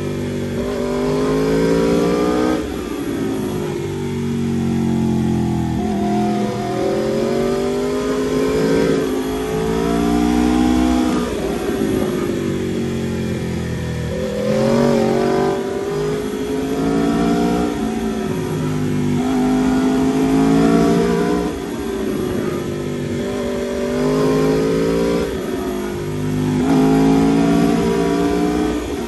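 Aprilia RSV4 RR's V4 engine heard from the rider's seat, revs climbing and dropping over and over, every two to three seconds, as the bike accelerates out of bends and rolls off into the next ones.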